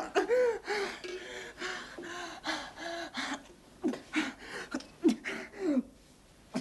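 A man gasping and moaning in short, rapid, voiced breaths, the sound of someone in distress. The gasps come in a quick run at first, then as a few sharper falling cries, and they die away near the end.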